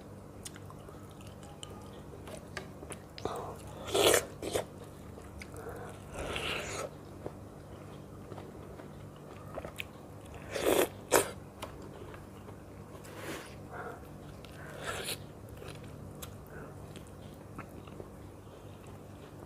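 Close-up eating of ripe mango slices held in the hands: scattered wet bites and chewing of the soft flesh, in short bursts, the loudest about four and about eleven seconds in.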